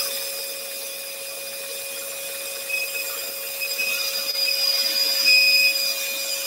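Scroll saw running with a steady hum while its blade cuts a wooden workpiece along a traced line. The cutting grows louder from about four seconds in.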